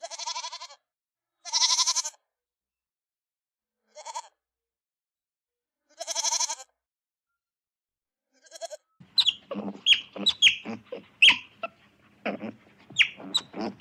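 Four separate high, wavering animal calls, about two seconds apart. From about nine seconds in they give way to a quick run of many short, sharp calls.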